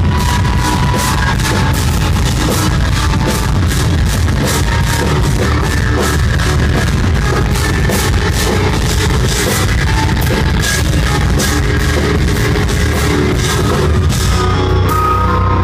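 Live instrumental progressive metal: intricate eight-string electric guitar lines over a drum kit with dense, rapid cymbal and drum hits, played loud. Near the end the cymbal wash drops away.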